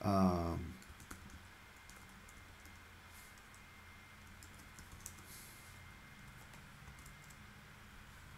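Typing on a computer keyboard: faint, irregular key clicks as a line of text is entered.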